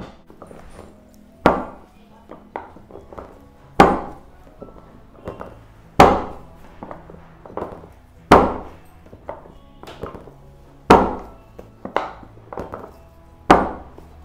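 Music with a slow, heavy percussive beat: a loud, ringing hit about every two and a half seconds, with lighter hits in between.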